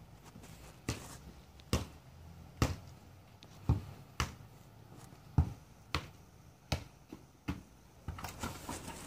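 Soccer ball being kicked and juggled off rubber boots: about nine sharp thuds, each half a second to a second apart, then a quicker run of lighter taps near the end.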